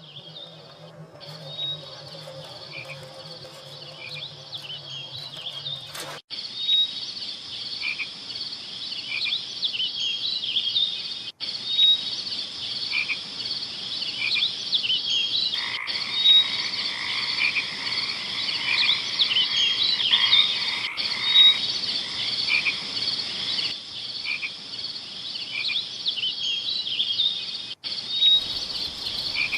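A chorus of many frogs calling at night, with short high calls repeating and overlapping steadily. A low hum sits under the first six seconds, and the sound drops out for a moment at a few splices.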